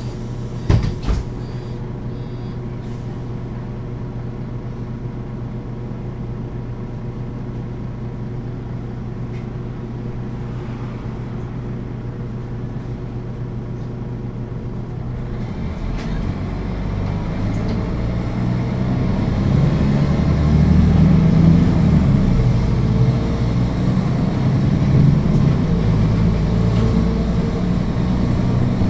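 Mercedes-Benz O 530 G Citaro articulated bus's diesel engine idling steadily, with a couple of short knocks about a second in; about halfway through the engine takes up load and the bus pulls away, the engine sound rising and growing louder.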